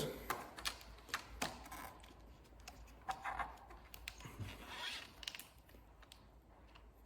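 Faint scattered clicks and short plastic rasps as nylon cable ties are handled and pulled through around the light's wiring.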